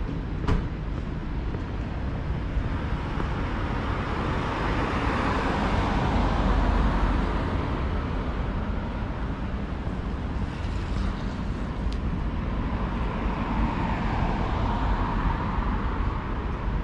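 Road traffic on a city street: a steady wash of vehicle and tyre noise that swells as one vehicle passes about six seconds in and another near the end. A sharp tap sounds about half a second in.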